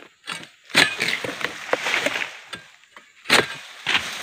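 Egrek (pole-mounted harvesting sickle) cutting oil palm frond stalks: three sharp cracks as the blade bites through, about a second in, near three and a half seconds and near the end, with crackling and rustling of the fronds between them.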